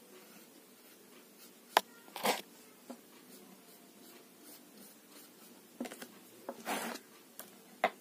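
Paintbrush working on a paper workbook page: short scratchy rubbing strokes and two sharp clicks, one about two seconds in and one near the end, over faint room hiss.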